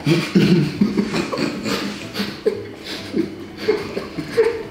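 Men laughing and chuckling, with a little low talk mixed in.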